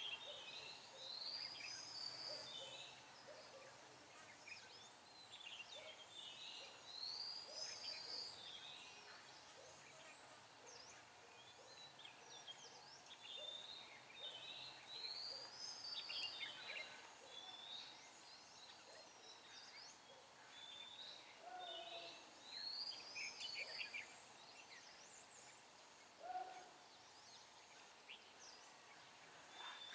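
Red-whiskered bulbuls singing: short, arching warbled phrases every few seconds, with scattered chirps between.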